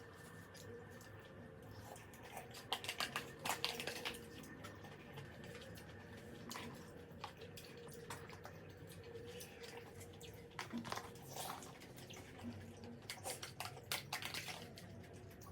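Close eating sounds of a person eating braised kimchi and pork: wet chewing and mouth clicks in three short flurries, over a faint steady hum.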